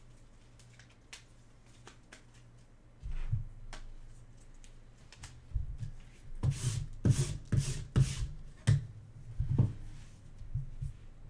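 Sleeved trading cards being handled in gloved hands: a few faint clicks at first, then a run of about six short rustling swishes of plastic sleeves and knocks in the second half as the stack is picked up and shuffled.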